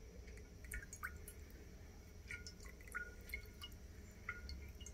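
Hot water trickling and dripping from a glass tumbler into an empty glass baking dish: faint, scattered drips and small plinks.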